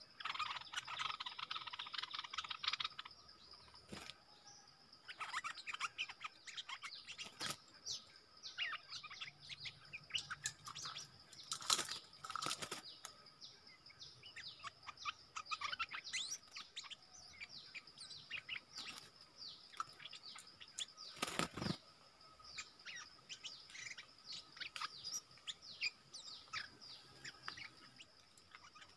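Stripe-throated bulbuls calling: many quick chirps and short notes, densest in the first few seconds, over a steady high-pitched hum, with a few sharp taps.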